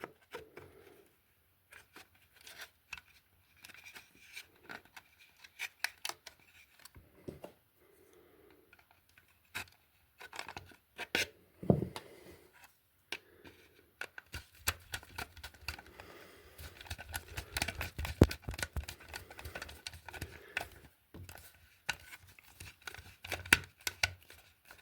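Irregular scraping and clicking of hands working a stripped electrical wire into the terminal of a plastic wall socket, with bursts that get busier about halfway through.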